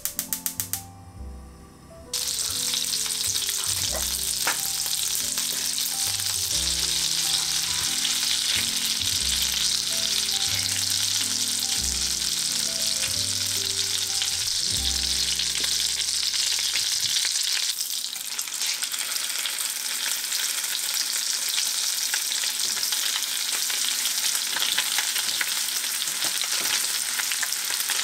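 Food sizzling in hot oil in a pan: a loud, steady crackling hiss that starts abruptly about two seconds in.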